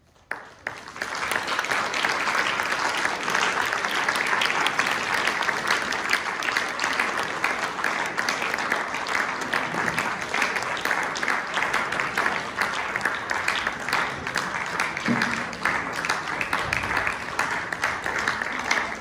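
Audience applauding, the clapping starting suddenly a moment in after near silence and continuing as a steady, dense crackle.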